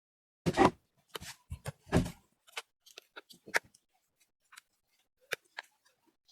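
Irregular clicks, taps and short scrapes of small hard objects being handled and set down, louder in the first couple of seconds and sparser after.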